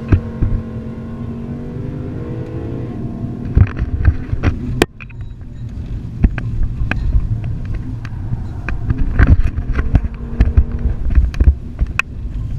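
Toyota Vios race car's engine running, heard from inside the cabin during a fast ride. After about three seconds, many sharp knocks and rattles cut through.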